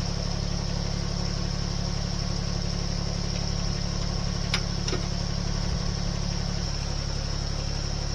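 An engine idling steadily, with a short sharp click about halfway through.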